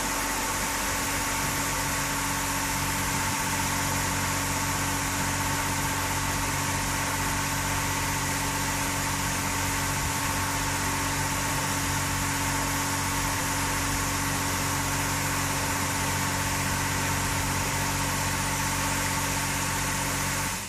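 Touchless automatic car wash machine running: a steady mechanical hum with several held tones over the hiss of high-pressure water spraying onto the car.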